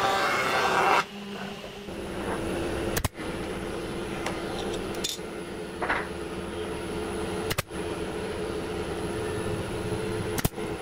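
A power woodworking machine runs loudly for about the first second and then cuts off. A pneumatic brad nailer then fires a few sharp shots into a mitered wooden frame, over a steady machine hum.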